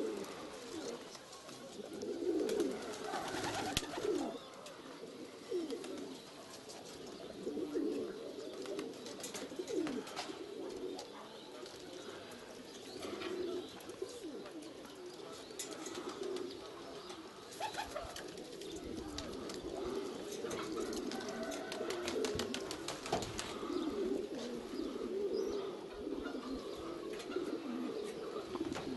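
A flock of domestic pigeons cooing, with many warbling coos overlapping, scattered with light clicks and taps.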